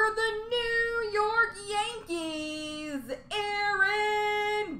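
High-pitched singing voice holding long notes that step up and down, broken by short pauses about two and three seconds in.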